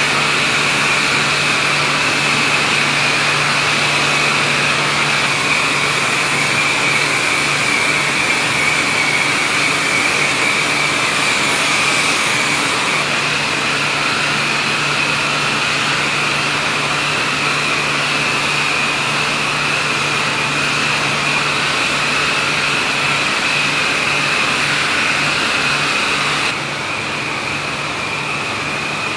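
Steady loud machine noise, a motor-driven whir with a held high whine and a low hum; it drops a little in level near the end.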